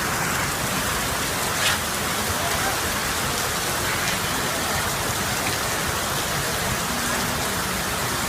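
Steady rain pouring down, an even dense hiss, with one brief sharp tap or splash about a second and a half in.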